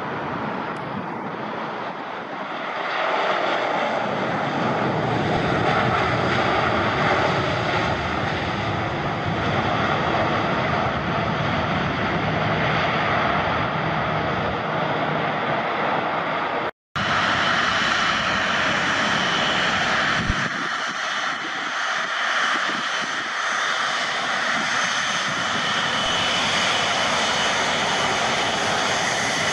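Jet airliner engines running loudly as an aircraft lands or taxis, the sound swelling a few seconds in. The sound cuts out for an instant a little over halfway through, and afterwards a steady high engine whine is heard over the noise.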